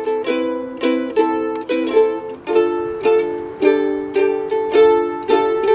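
A strummed string instrument playing chords at about two strums a second, with the chords changing as it goes.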